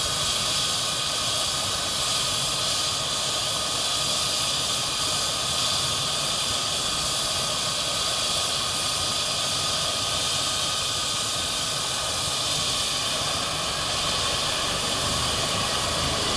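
MD902 Explorer helicopter's twin turbine engines running steadily on the ground with the main rotor turning: an even whine over a strong hiss.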